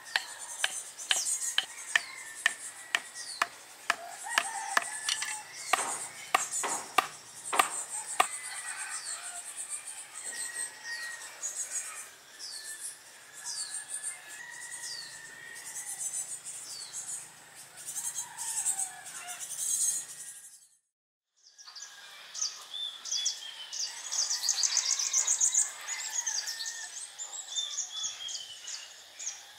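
Wooden mallet knocking short stakes into the soil, about two sharp knocks a second, for the first several seconds. Birds then chirp, mostly one falling chirp repeated about once a second, broken by a brief dropout about two-thirds of the way through.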